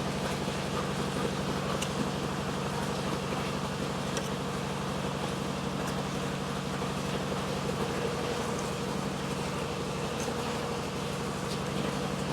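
A steady low mechanical hum with a constant drone, unchanging in level.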